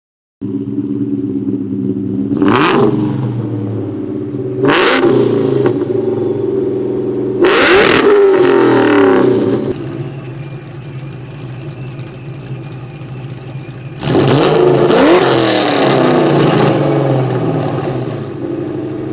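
Mustang V8 exhaust idling, revved briefly twice, then held in two longer revs of two to three seconds each, settling back to idle between and after.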